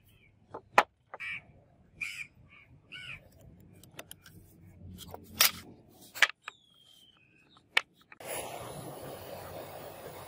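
Sharp clicks and taps from handling and cutting a red block on a wooden board, with a bird calling several times in short, harsh calls in the first few seconds. From about eight seconds a steady rushing noise takes over.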